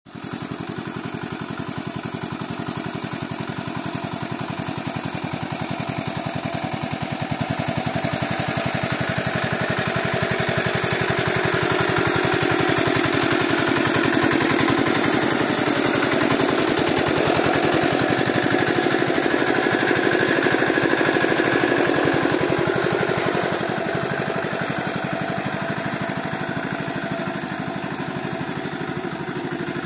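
Homemade mini tractor's small 4 hp engine running steadily as the tractor drives by pulling a cultivator, louder as it passes close in the middle and a little quieter again for the last few seconds.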